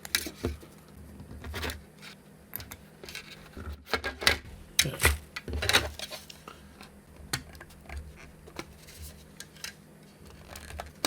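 Irregular clicks and snaps of a hand tool cutting away pieces of a 3D-printed plastic case, with plastic parts being handled between cuts.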